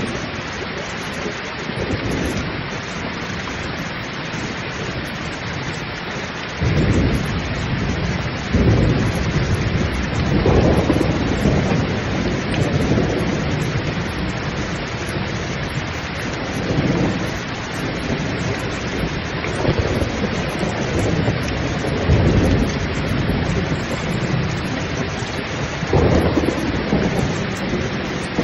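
Pouring rain with a steady hiss, and thunder: a sudden low crack about six and a half seconds in, then repeated rolling rumbles that swell and fade every few seconds.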